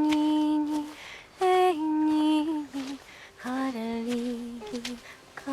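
A woman's voice, unaccompanied, singing a slow melody in long held notes, phrase by phrase with short pauses between, the pitch stepping down within each phrase.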